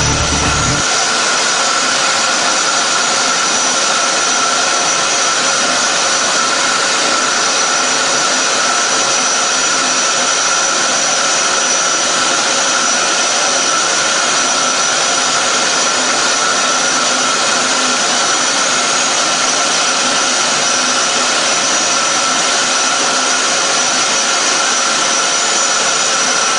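Steady rushing roar of a cement rotary kiln's burner flame firing, with constant high whistling tones above it.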